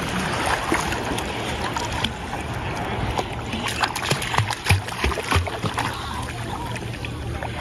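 Beagle puppy paddling and splashing in shallow sea water, over a steady wash of water and wind noise. A run of sharp splashes comes in the middle, the loudest a little under five seconds in.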